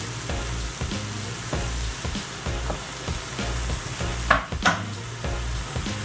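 Onions and mushrooms sizzling in a skillet as they are stirred, with two loud sharp knocks a little past four seconds in.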